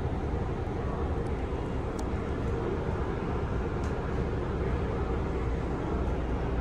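Steady hum and whir inside a parked Kintetsu 7020-series electric train car standing with its doors open, its onboard equipment running, with two faint ticks.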